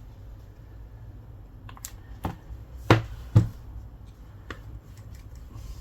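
A handful of sharp taps and clicks from handling the iPad and tools on the repair bench, the two loudest close together about three seconds in.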